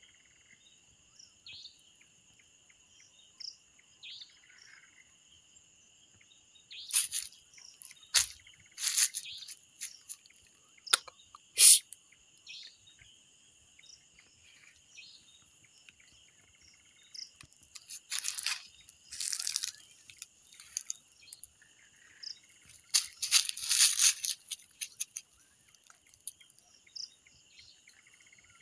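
Crickets chirring steadily in two high, even bands. Over them come several loud, harsh, hissing bursts, each lasting about a second: a cluster about a quarter of the way in, a single sharp one just after, and more about two-thirds and four-fifths of the way through.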